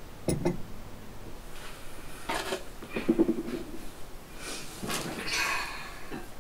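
A ceramic mug set down on a wooden side table with two quick knocks, then footsteps and the rustle of clothing and cushions as someone sits down on a fabric sofa.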